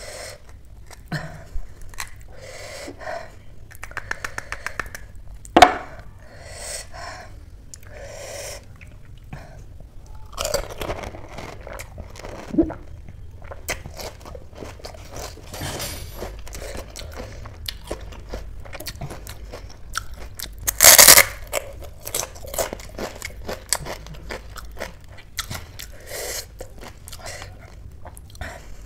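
Close-up eating of pani puri: crisp puri shells cracking and being bitten, with crunching and wet chewing in many short crackles. The loudest is a short noisy burst about two-thirds of the way through.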